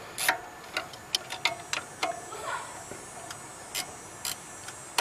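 Ratchet wrench clicking in short, uneven runs as a bolt on the alternator mount is screwed in.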